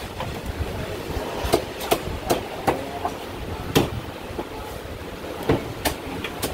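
A cleaver striking a thick wooden chopping block: a string of sharp, irregularly spaced knocks, several in quick succession, over a steady low background noise.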